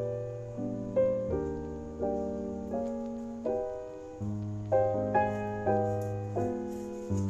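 Background piano music: notes struck about twice a second, each fading away, over held low bass notes.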